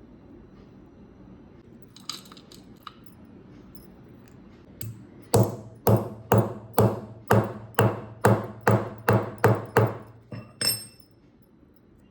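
A few light clinks about two seconds in, then about a dozen heavy, even pounding strikes at roughly two a second, each ringing briefly. The last strike ends in a high metallic ping.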